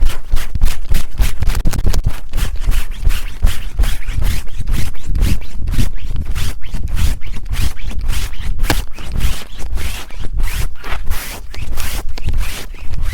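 Fast, aggressive scratching and rubbing directly on a TASCAM recorder's microphones, a quick run of strokes several times a second with a heavy low rumble from the handling.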